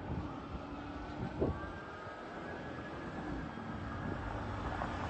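Street traffic noise with a fire engine's siren fading into the distance as a faint, slowly falling tone, and a single thump about a second and a half in.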